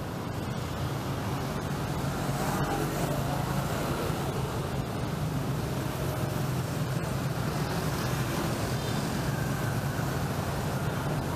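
Steady street traffic noise, a continuous rumble of passing vehicles that swells slightly about two seconds in.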